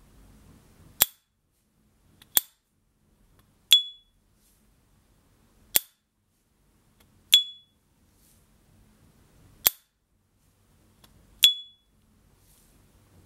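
S.T. Dupont Ligne Gatsby gas lighter's hinged metal lid snapped open and shut repeatedly: seven sharp metallic strikes spaced a second or two apart, three of them with a brief high ping ringing after the click. This is the lid's characteristic ping, sounded as a test of the lighter.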